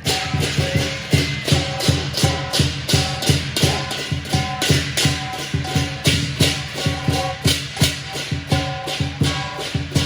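Lion dance percussion: a drum and clashing cymbals beating a fast, steady rhythm of about four to five strikes a second, with short ringing tones over it.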